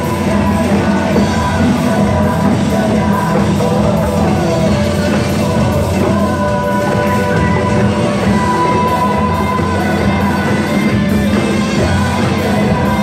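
Loud pop music with singing, with djembe hand drums and a cajón played along to it in a group drum performance.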